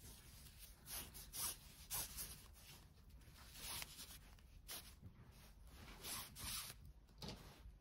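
Nylon paracord pulled through a loop: a series of faint, short rasps of cord rubbing against cord at irregular intervals.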